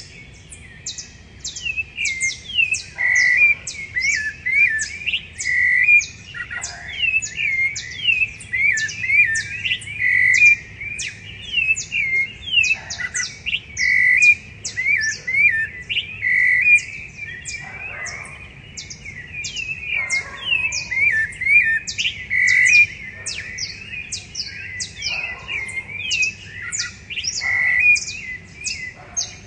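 Several rufous-bellied thrushes singing a pre-dawn chorus: continuous, overlapping phrases of clear whistled notes, with a rapid string of thin high notes above them.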